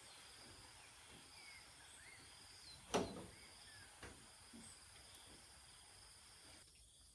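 Faint insects, crickets or similar, chirping in a steady pulsing drone, with a few short rising chirps. One sharp knock about three seconds in is the loudest sound, with a smaller tap about a second later.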